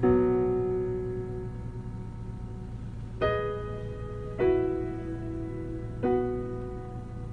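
Solo piano in a pause of a sung ballad, played over a car's upgraded three-way speaker system: a chord at the start that fades out, then three more chords struck about a second or two apart, each left to ring.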